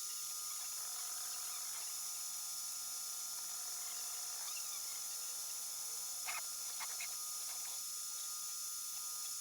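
3D printer stepper motors whining in stacked tones that start, stop and glide in pitch as the print head moves, over a steady hiss. A few short sharp chirps come about six to seven seconds in.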